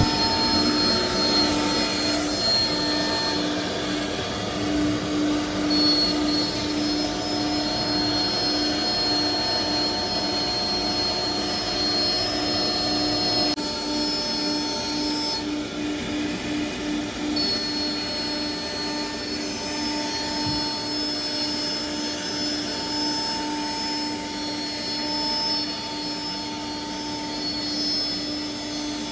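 Four-head CNC router running: steady spindle whine over a haze of cutting noise. The high tones briefly drop out about halfway through, then return.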